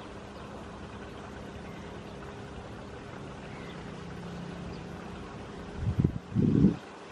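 Air Tractor AT-501 crop duster's radial engine and propeller droning steadily as it flies past low. Near the end, two loud low rumbling bumps of wind hit the microphone.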